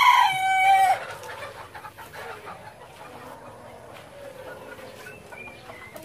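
Rooster crowing, the long held final note of the crow ending about a second in, followed by fainter chicken calls from the pen.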